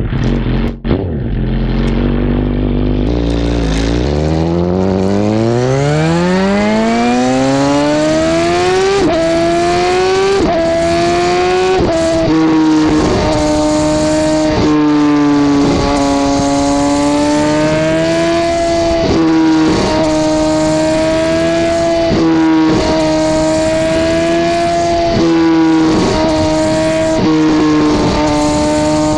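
2009 Suzuki GSX-R1000 K9 inline-four running through a Two Brothers M2 slip-on exhaust, heard close to the muffler. The engine runs low at first, then revs climb steadily as the bike pulls away, with three quick upshifts each dropping the pitch. It then settles into a steady cruise, the note rising and falling with the throttle.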